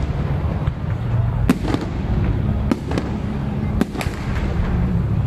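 Aerial fireworks bursting in a display: about five sharp bangs, the loudest about a second and a half in and two close together near four seconds, over a steady low rumble.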